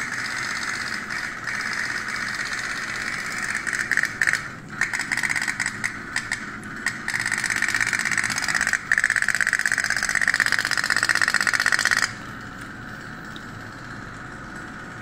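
Toy pop-pop boat's oil-fired steam engine running with a rapid, high, cricket-like buzz of fast pops. It stutters for a few seconds about four seconds in, runs steady again, then cuts off suddenly about 12 seconds in.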